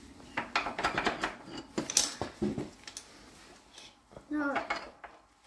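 Steel connecting rods and their big-end caps clinking and knocking against the engine block and studs as they are worked loose and pulled out of the upturned block: a quick run of sharp clinks over the first couple of seconds, then a short ringing clang.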